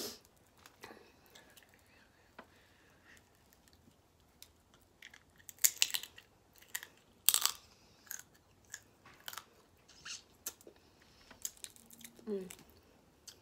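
Snow crab legs being picked apart and bitten: irregular sharp clicks and crunches of shell, loudest around six and seven seconds in. A short hummed voice sound near the end.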